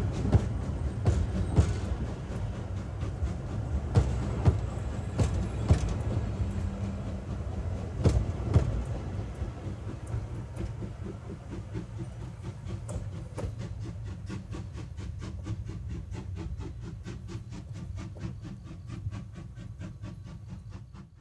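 Steam-hauled train running, with sharp clacks of wheels over rail joints, often in pairs, over a low rumble. In the second half a quick, even beat takes over as the sound fades away, then it cuts off at the end.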